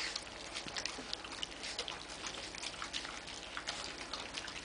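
Several young puppies lapping and smacking at their first soft food in a metal bowl: quick, irregular wet clicks and slurps, many overlapping.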